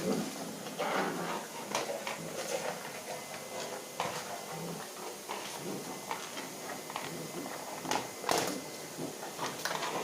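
Corgi puppy yapping and scuffling, irregular short bursts mixed with scattered knocks, strongest about a second in and again near the end.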